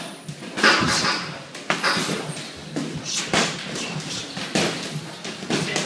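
Boxing gloves landing in sparring: a string of sharp, irregularly spaced slaps and thuds, about half a dozen, over gym background noise.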